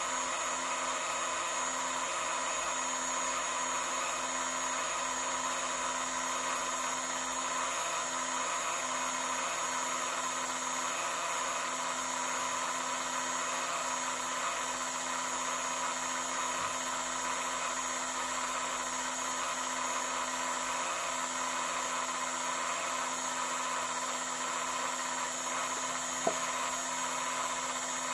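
Steady whirring hum of a laundry appliance's electric motor, holding an even pitch throughout, with one short click near the end.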